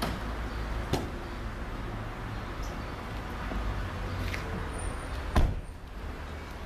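Steady rushing noise with a low rumble, broken by a sharp knock about a second in and a louder thump a little after five seconds in.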